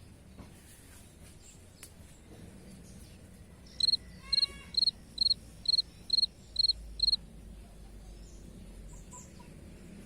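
A cricket chirping: eight short, high chirps in an even run, about two and a half a second, starting about four seconds in, over a faint outdoor background.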